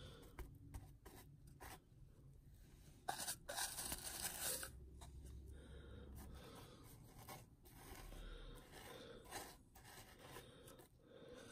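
Faint scraping and rustling from a paintbrush and modelling supplies being handled on a workbench, with a louder patch of scraping about three seconds in.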